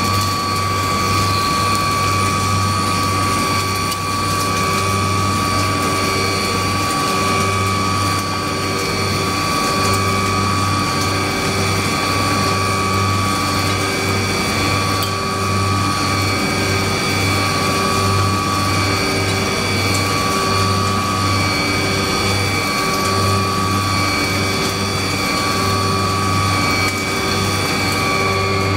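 CNC machining center cutting metal with an indexable end mill: a continuous high-pitched cutting tone over a low spindle hum, pulsing in a regular rhythm as the inserts work through the block.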